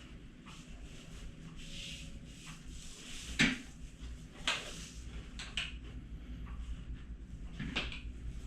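Y-strap traction adjustment of the spine: rustling of the strap and body with a few short, sharp pops, the loudest about three and a half seconds in and a last one near the end.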